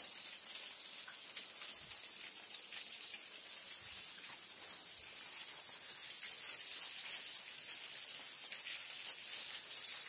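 Small creek waterfall: a steady, high hiss of falling and splashing water, growing a little louder after about six seconds, with a few faint knocks.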